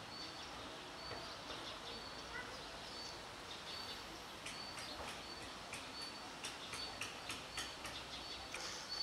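Small birds chirping: one repeats a short high note about once a second, and from about halfway quick sharp chirps come two or three a second.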